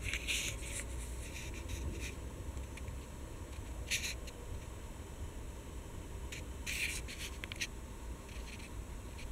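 Short scratching and rubbing noises, a handful scattered through, loudest about four seconds in and again near seven seconds, over a steady low rumble and a faint high whine.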